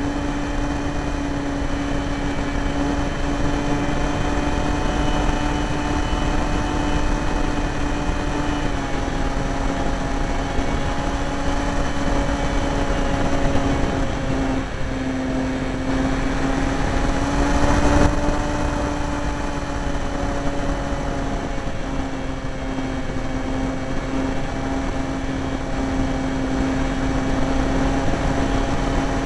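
Radio-control Me 163 Komet model's motor and propeller droning steadily, heard from the camera mounted on the plane, with air rushing over the microphone. The pitch dips and rises a little a few times as the throttle changes, and the wind rush swells briefly in a turn.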